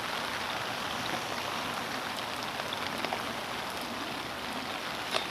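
Heavy rain falling steadily, with one small tap near the end.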